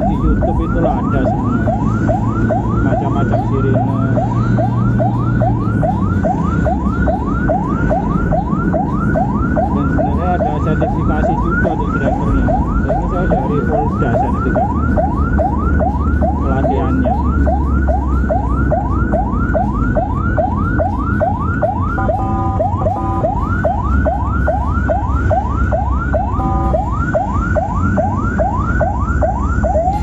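Ambulance siren on a fast yelp, heard from inside the ambulance over its engine and road noise: rising sweeps repeating about three times a second. Twice, about two-thirds of the way through and again near the end, the yelp breaks briefly for a short steady tone.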